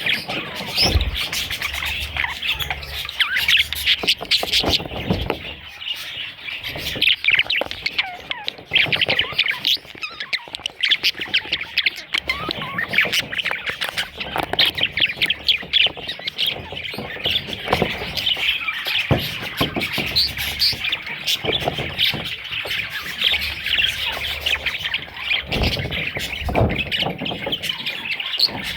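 A group of budgerigars chirping and squawking, many short calls overlapping without a break.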